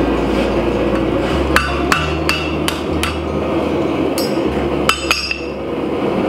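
Hand hammer striking red-hot steel on an anvil, each blow ringing off the anvil: a run of five blows starting about one and a half seconds in, then three quicker blows near the end. Background music plays underneath.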